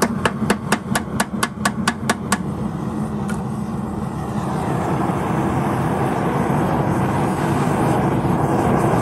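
About a dozen sharp, evenly spaced clicks, about five a second, in the first two and a half seconds. Then, from about four and a half seconds in, the steady roar of a gas forge burner heating a knife blade.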